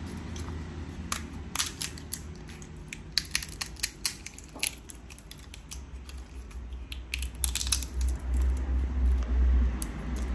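Brittle shells of ripe tamarind pods cracking and snapping as they are peeled by hand, in two runs of sharp crackles. A low rumble sits underneath and grows louder in the second half.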